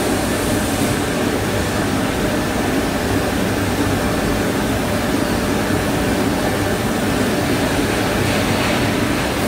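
Hanger-type shot blasting machine running: a steady, loud mechanical whirr of its motors and fans with a low hum underneath.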